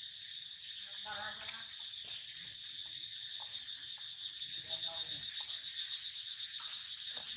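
Steady high-pitched insect chorus, with faint voices in the background and one sharp click about a second and a half in.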